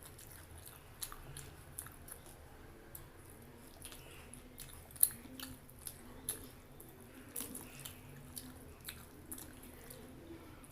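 Close-miked chewing of a mouthful of food, with wet mouth clicks and smacks scattered through it. One sharp click about five seconds in is the loudest.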